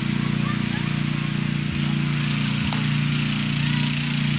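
Ride-on lawn tractor's small engine running steadily as it drives across the grass.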